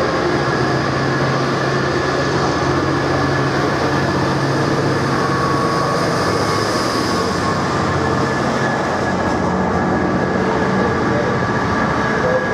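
A Class 66 diesel locomotive's two-stroke V12 engine runs as it passes at close range hauling a container freight train. After about eight seconds the engine note gives way to the steady rumble and clatter of the wagons rolling by.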